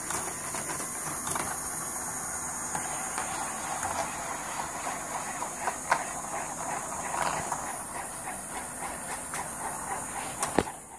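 Bandai Spacewarp marble coaster running: small steel balls roll and rattle along its plastic rail track as a steady clattering rush full of small clicks. A few sharper clicks stand out, one about halfway through and one near the end.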